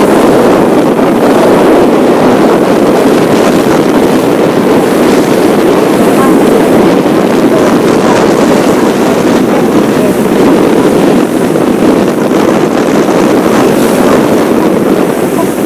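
Tour boat underway at sea: a steady, loud rush of engine and water noise with wind buffeting the microphone.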